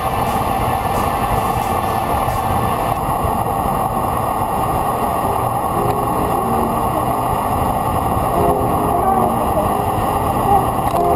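Steady rush of wind and road noise on the microphone of a camera mounted on a road bike descending at speed.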